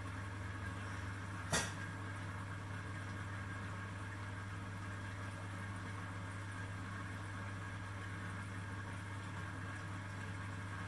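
Reef aquarium pumps running with a steady low hum and a hiss over it, and a single sharp click about a second and a half in.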